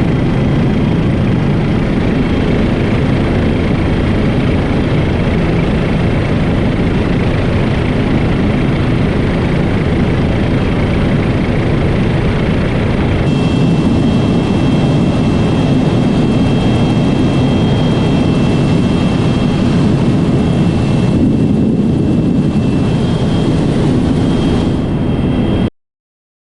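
Helicopter running steadily: loud, even engine and rotor noise with a thin high whine, cutting off suddenly near the end.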